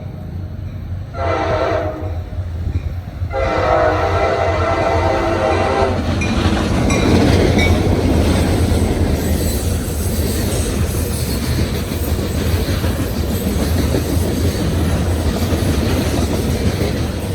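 CSX freight locomotive's air horn sounding a short blast, then a long one, as the train reaches the crossing. The southbound train then rushes past at speed with a loud steady rumble and the clatter of rail cars on the track.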